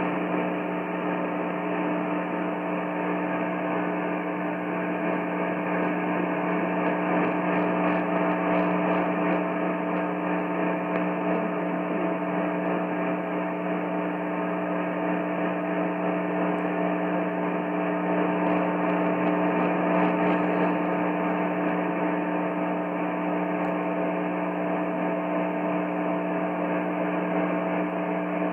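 Steady buzzing hum with hiss from an AM radio receiver: dead air on the station, with no message or alert tone being played.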